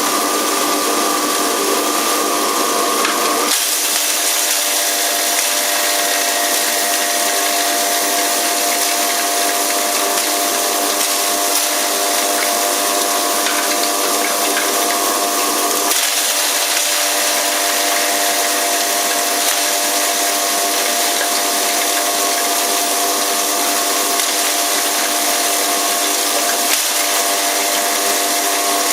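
Electric hammer mill herb grinder running continuously: a steady motor whine with a strong high hiss, its tone shifting slightly about three and a half seconds in and again about halfway through.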